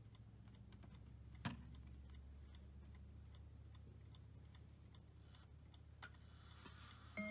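Howard Miller Webster mantel clock movement ticking faintly and steadily, with two sharper clicks, one about a second and a half in and one near six seconds. Right at the end the clock's chime begins to strike.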